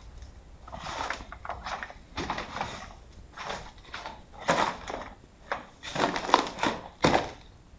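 Footsteps crunching over debris of paper, magazines and broken tiles littering a floor: a run of irregular crunches, roughly one a second.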